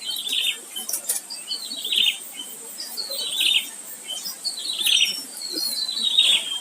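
A bird singing the same short descending phrase over and over, five times, about every one and a half seconds.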